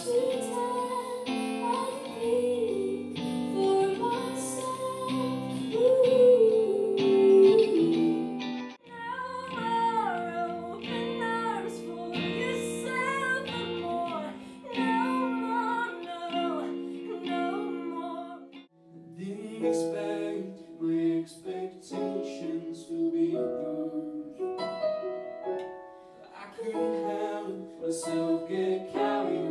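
Live songs in three short excerpts that change abruptly about a third and two thirds of the way through. A woman sings with electric guitar, and near the end a man sings over an electric keyboard.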